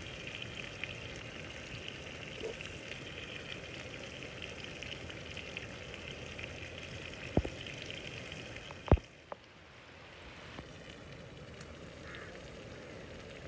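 Chicken sizzling and frying on a tawa, a flat griddle, as a steady hiss. Two sharp knocks come about seven and nine seconds in, and after the second the sizzle is quieter.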